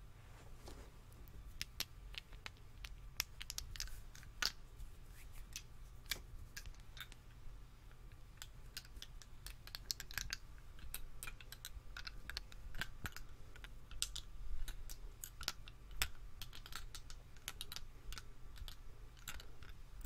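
ASMR hand sounds: palms and interlocked fingers rubbing and pressing together right at the microphone, making a dense, irregular run of crisp little clicks and crackles.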